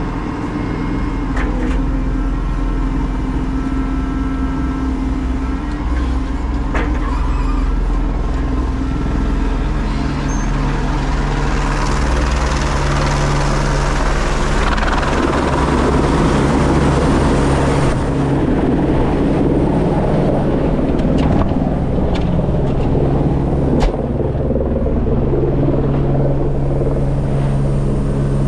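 Steady drone of a Menzi Muck M335 spider excavator's diesel engine heard from inside its cab, mixed with a helicopter hovering close overhead. A louder rushing noise swells through the middle and eases off again.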